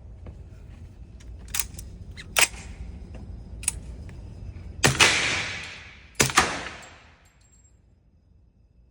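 Gunshots from a suppressed .45 ACP rifle: a few lighter shots in the first four seconds, then three louder ones, one about five seconds in and two close together just after six seconds, each trailing off in echo.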